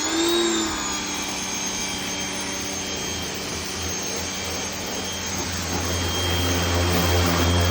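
Worx WG605 electric pressure washer just started up: its motor and pump whine rises and settles within the first moment, then runs steadily. A low hum grows stronger about five seconds in.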